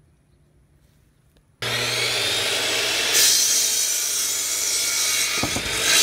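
Near silence, then an electric compound miter saw starts abruptly about a second and a half in and cuts through a 4x4 wood post, with a steady motor hum under the blade noise. The cutting grows louder and brighter about halfway through, and a low thud comes near the end.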